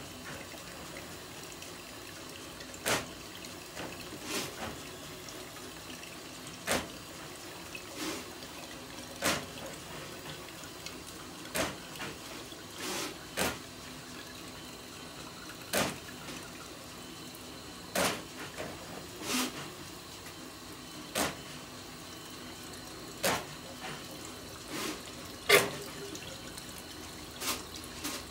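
Water running steadily, with single drips or splashes landing every second or two, onto a wet floor at a kitchen floor drain.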